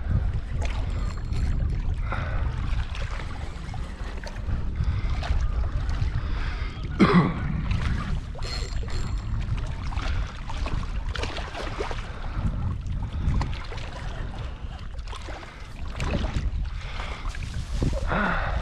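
Strong wind buffeting the microphone as a constant low rumble, with water lapping and splashing at the water's edge.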